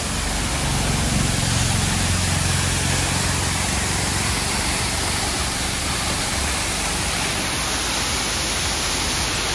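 Steady rushing roar of a roadside waterfall. A low rumble swells in the first few seconds and then fades under it.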